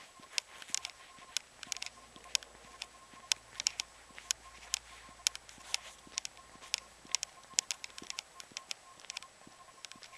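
Footsteps on gritty asphalt, short crisp crunching clicks at a walking pace of about two a second.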